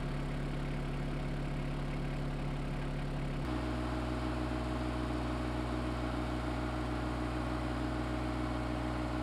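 Compact tractor's engine idling steadily. Its note changes abruptly about three and a half seconds in, then holds steady again.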